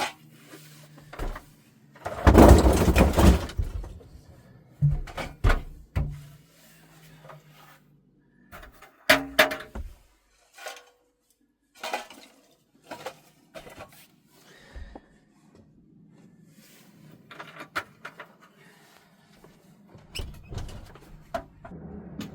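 Irregular knocks, clunks and clatter of split firewood and a small metal wood stove being handled in a small room, with a longer rustling clatter about two seconds in.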